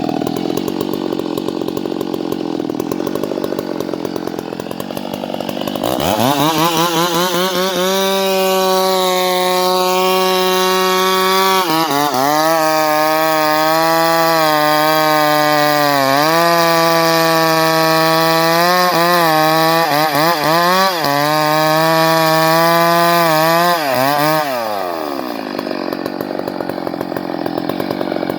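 Two-stroke chainsaw idling, then opened up to full throttle about six seconds in. It runs hard for some eighteen seconds, its pitch dipping several times as the chain bites into wood. Near the end it drops back to idle.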